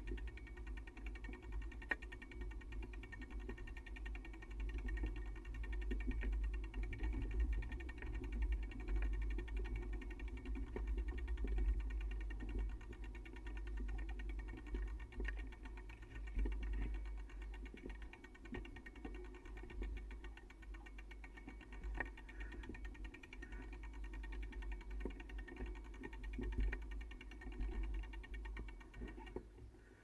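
Bicycle riding along a dirt trail: a steady low rumble with rattling and fast mechanical ticking from the bike, which drops away abruptly at the end.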